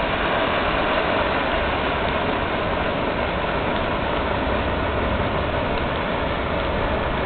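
A 200-gram Reflection Fountain ground firework burning and spraying sparks, with a steady, even rushing hiss.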